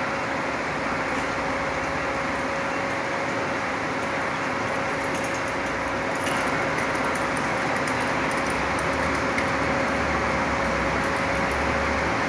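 Bus engine running steadily with a constant whine; a deeper engine rumble builds about six seconds in.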